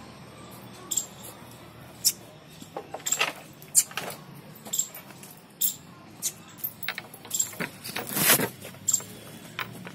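Irregular metallic clinks and rustles: the chain around a tethered cow's neck jangling as the animal moves its head while being handled, loudest about three seconds in and again near the end. A short high chirp recurs roughly once a second.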